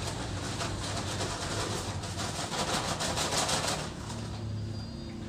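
Gritty scraping rush of loose grit being scooped from a floor pile with a plastic tub, loudest in the middle for about two seconds.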